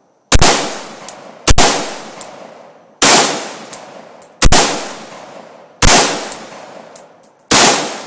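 AR-15 rifle fired semi-automatically: six single shots, about one to one and a half seconds apart, each followed by an echo that dies away.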